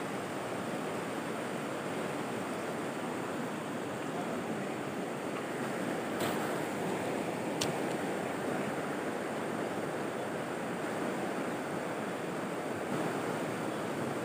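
Shallow rocky river rushing steadily over stones. Two faint clicks a little past the middle.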